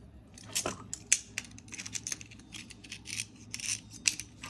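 Irregular clicks, taps and short scrapes of small tools or parts being handled close up, with a brief falling squeak about half a second in.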